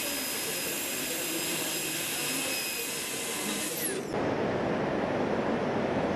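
High-pitched whine and hiss of a dental air-turbine handpiece running with water spray as its diamond bur cuts a model tooth. It cuts off abruptly about four seconds in, leaving a duller, lower background noise.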